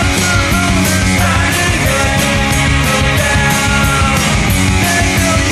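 Loud punk rock music with a fast, steady drum beat.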